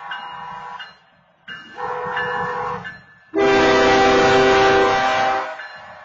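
BNSF locomotive air horn sounding the end of the long-long-short-long grade-crossing signal: a long blast that ends about a second in, a short blast, then a louder long blast that stops near the end, over the low rumble of the approaching train.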